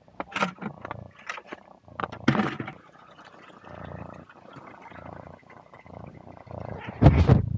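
Close scuffing and rubbing of a barn cat's fur and body against a tiny camera strapped to it as it moves: a run of short clicks and scuffs at first, a murky rumble in the middle, and a loud rub against the microphone near the end.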